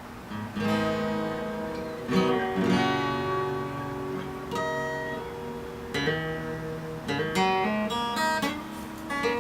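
Acoustic guitar playing, with chords and notes struck every second or so and left to ring.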